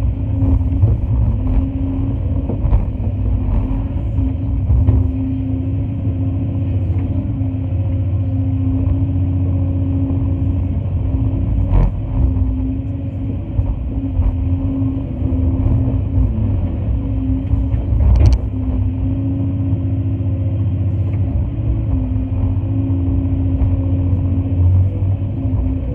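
Cat 349 excavator's diesel engine running steadily under working load, heard from inside the cab, with a steady tone over a deep rumble. Two sharp clicks, about twelve and eighteen seconds in.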